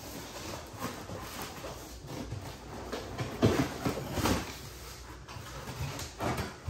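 Packaging being handled: cardboard and plastic rustling, with a few short louder knocks and scrapes as the contents come out of the box.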